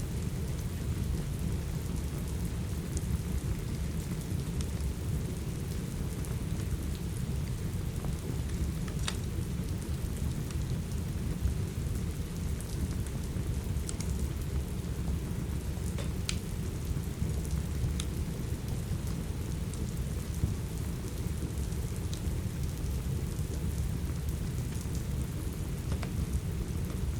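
Steady rain mixed with a crackling wood fire: a constant heavy rush with a deep rumble underneath, and sharp fire crackles and pops scattered irregularly throughout.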